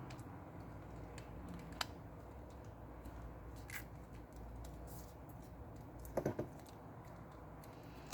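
A few faint, sparse clicks and taps of small parts being handled as a smartphone's inner cover is fitted back in place, over a low steady hum.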